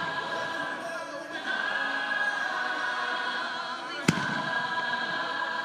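A single sharp firework bang about four seconds in, over choral music accompanying the fireworks show.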